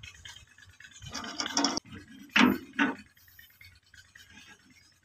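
Sheet-metal parts of a stone flour mill being handled: a rough metal scrape, then two short, louder scrapes or knocks close together about halfway through.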